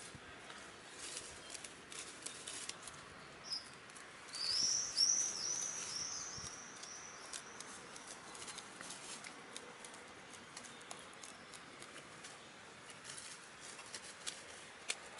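Domestic hens pecking and pulling at grass close by: a scatter of small clicks and rustles throughout. About four seconds in, a bird gives a run of about five high chirping notes over a couple of seconds, the loudest sound here.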